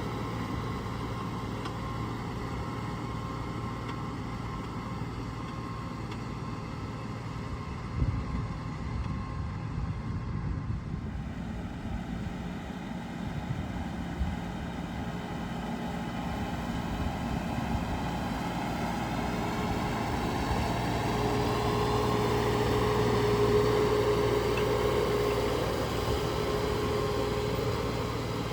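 Tractor engine running steadily, with a sharp knock about eight seconds in; it grows louder for a few seconds near the end.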